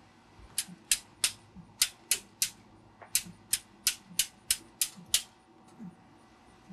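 Metal grill tongs being snapped open and shut over and over: a run of about sixteen sharp metallic clicks, roughly three a second, that stops a little after five seconds in.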